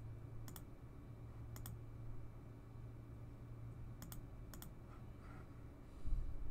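Computer mouse button clicked about four times, each click a quick double tick, over a steady low hum. A louder low thump comes near the end.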